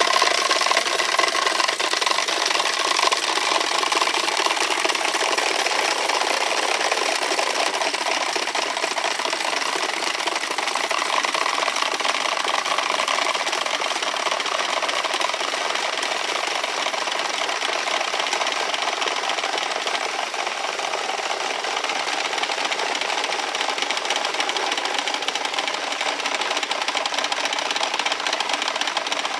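Several wooden Easter rattles (Klappern) worked at once, making a loud, continuous rapid clatter that hardly varies. This is the Holy Week rattling that stands in for the silent church bells.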